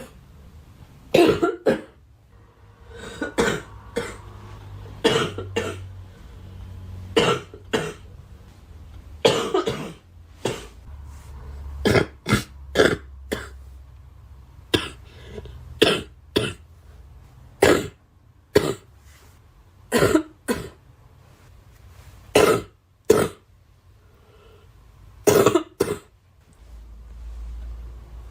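A girl coughing over and over: short, sharp coughs, some single and some in quick runs of two or three, coming about every second or so.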